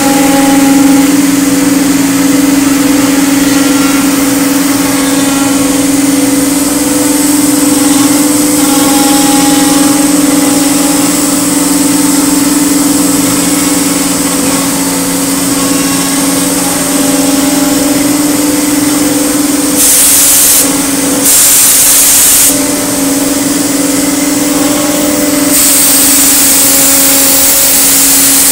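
Multicam MG205 CNC router running, a steady machine hum on one unchanging pitch. About twenty seconds in come two short bursts of hissing, then a longer hiss near the end.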